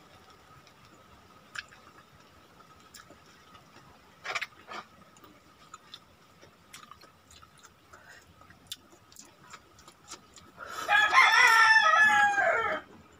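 A rooster crowing once near the end, a single loud call of about two seconds that drops in pitch as it ends. Before it come faint, scattered clicks and smacks of someone eating with their hands.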